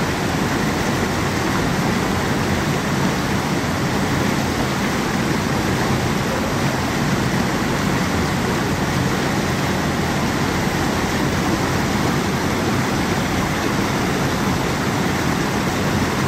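Small waterfall pouring over rock ledges into a pool: a steady, loud rush of white water.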